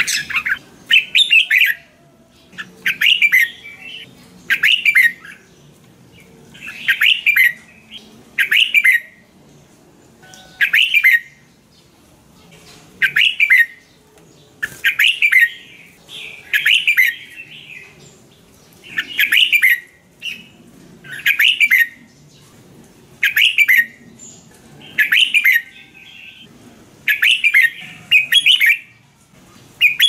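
Red-whiskered bulbul singing: short song phrases repeated about every two seconds, some coming in quick pairs, with brief quiet gaps between them.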